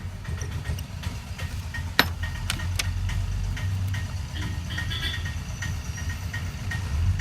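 A steady low rumble with scattered sharp clicks and taps; one louder click about two seconds in, and faint ticks repeating a few times a second.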